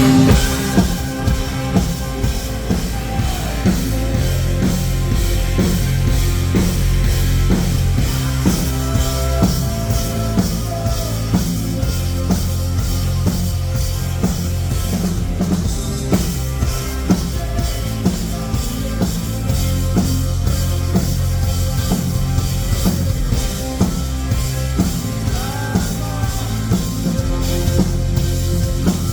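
Rock band playing live, an instrumental passage with a drum kit keeping a steady beat of kick and snare hits over sustained bass notes.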